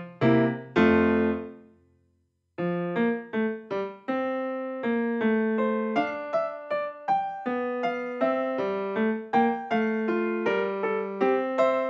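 Background piano music: single struck notes and chords that ring and fade. About two seconds in it dies away to a brief silence, then a new phrase starts and runs on steadily.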